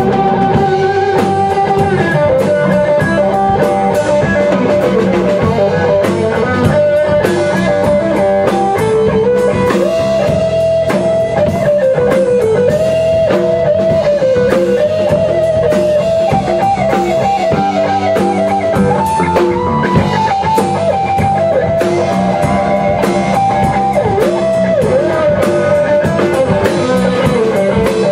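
Rock band playing an instrumental passage with no vocals: an electric guitar lead line with bent notes over bass guitar and a drum kit.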